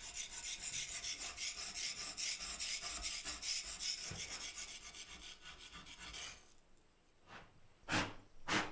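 Rapid, even filing strokes of a hand tool scraping a workpiece, stopping about six seconds in. A few sharp knocks follow near the end.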